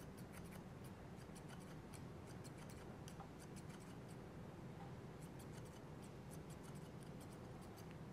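Hair-cutting scissors snipping dry hair, faint, in quick runs of small snips grouped in several short clusters: thinning the hair above the bob's outline to lighten it.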